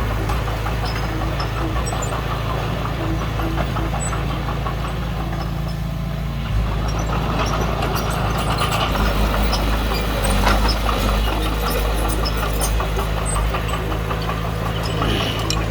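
Komatsu D20P bulldozer's diesel engine running steadily, its note shifting about six seconds in, with scattered metallic clicks and clanks from the machine working.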